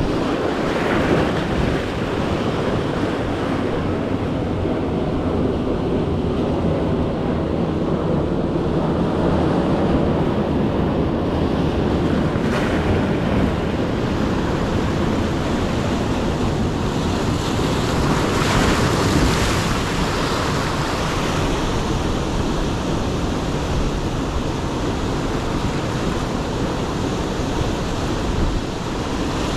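Ocean surf washing steadily, swelling several times as larger waves come in, with wind buffeting the microphone.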